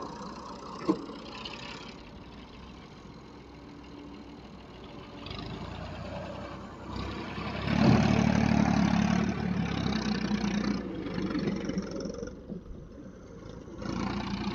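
Farm tractor's diesel engine running low, then revving hard under load for about three seconds as it pulls a trailer carrying an excavator. It eases off and revs up again near the end. A single knock comes about a second in.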